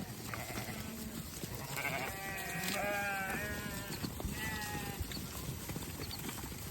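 Several sheep bleating: a few overlapping calls about two seconds in, then a shorter single bleat near the middle.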